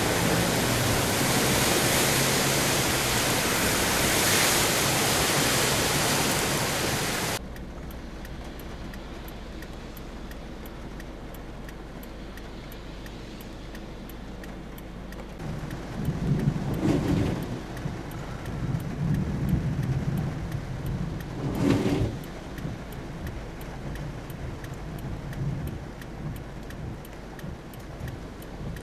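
Heavy rain and the rush of spray from a flatbed truck and cars driving through a flooded street. About seven seconds in it cuts to a quieter hiss of rain, with vehicles passing through the water now and then.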